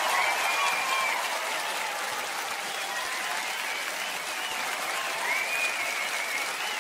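Large theatre audience applauding, with a few high calls rising over the dense clapping.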